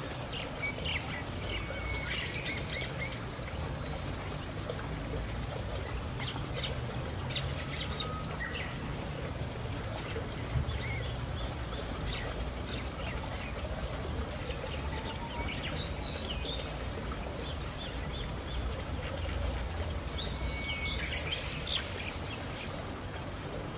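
Birds chirping on and off over a steady low background rumble.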